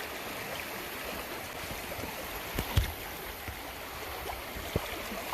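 River water rushing through small rapids around a river tube, a steady wash broken by a few sharp thumps, the loudest about three seconds in.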